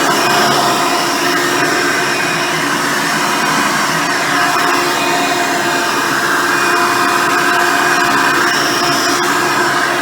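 Hoover Decade Elite Soft and Light upright vacuum cleaner running steadily, its motor giving a continuous whine over the rush of airflow.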